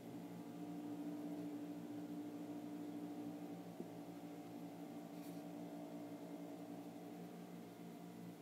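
Steady low background hum made of several held tones, with a single faint click about four seconds in.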